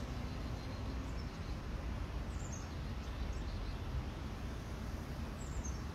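Steady low outdoor background rumble, with a bird calling twice, short high falling chirps about three seconds apart.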